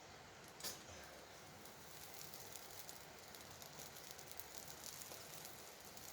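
Faint crackling and hissing of a campfire, with one sharp click about a second in and scattered small crackles after.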